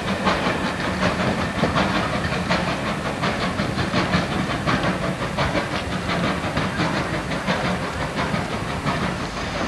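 Passenger coaches of a departing steam-hauled train rolling away along the line, wheels clicking steadily over the rail joints over a continuous hiss.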